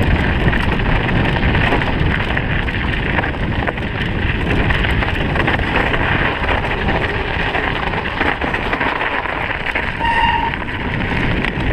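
Mountain bike riding fast over a snowy, bumpy trail: steady tyre and rattle noise mixed with wind buffeting the microphone. A short squeak sounds about ten seconds in.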